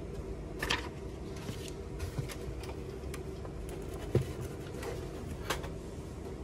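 Handling noise from a disassembled inkjet printer's plastic body and frame as it is lifted and tilted: a few light clicks, with a dull knock about four seconds in, over a steady low hum.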